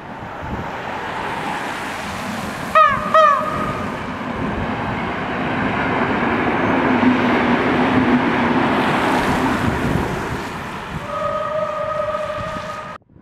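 EN57 electric multiple unit sounding two short horn toots about three seconds in, a greeting to the trainspotter, then the rumble and rush of the train passing, loudest in the middle and fading away. A steadier horn note sounds again near the end.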